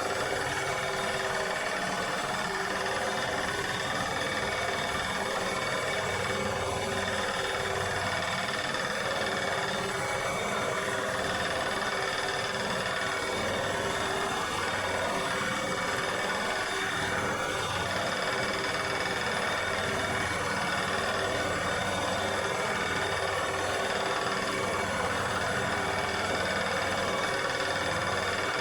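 Lawnmower engine running steadily at constant speed.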